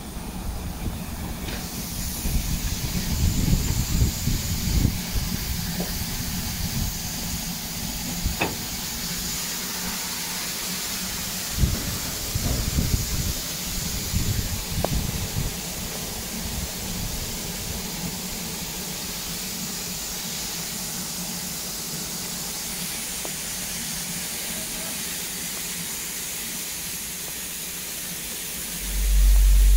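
Steam tank locomotive standing still, with steam hissing steadily from its cab fittings. A few faint clicks and low rumbles come in the first half, and a sudden low rumble starts just before the end.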